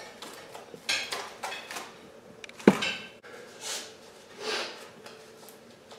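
Knife and hands working the hide of a hanging deer carcass: scattered scrapes, rustles and light clinks, with one sharp clack about two and a half seconds in.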